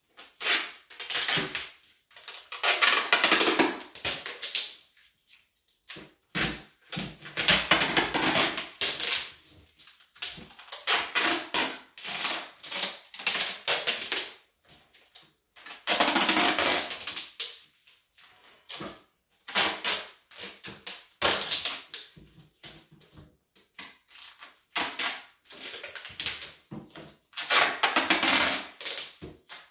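Duct tape pulled off the roll and wrapped around the end of a thick manila climbing rope: repeated ripping screeches, each a second or two long, with short pauses between pulls.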